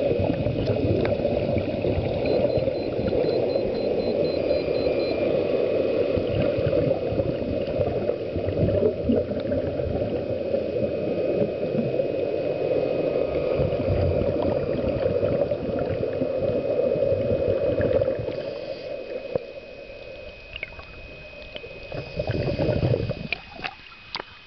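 Scuba exhaust bubbles bubbling and rushing underwater during a diver's ascent, heard through an underwater camera housing. The sound thins out after about three quarters of the way through, and the camera breaks the surface near the end with a few splashes.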